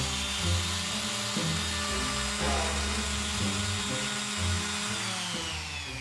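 Random orbital sander with a homemade replacement pad running with a steady high whine, then winding down in pitch near the end as it is switched off.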